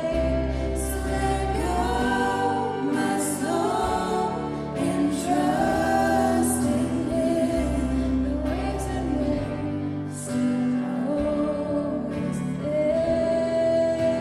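Live worship band music with singing: voices over a band with a sustained low bass and cymbal accents, captured in the room.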